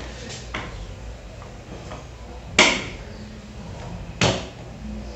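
Two sharp knocks on a granite countertop, about a second and a half apart, the first about two and a half seconds in, while cookie dough is rolled out with a rolling pin and handled on the counter. Soft handling noise and a faint low hum lie underneath.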